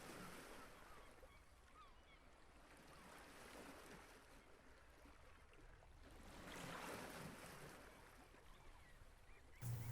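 Faint recorded beach ambience: ocean waves washing on a shore, swelling and fading twice, with a few faint chirps over it. A louder low sound comes in right at the end.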